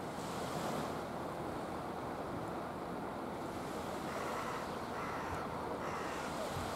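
Steady wash of a calm sea on the shore, mixed with wind on the microphone.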